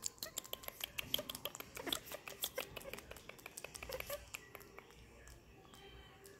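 Baby macaque making a few faint squeaks over a run of quick clicks that thins out after about four seconds.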